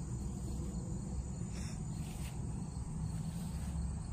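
Crickets trilling steadily in one thin, high, unbroken tone over a low rumble on the microphone, with a few faint rustles.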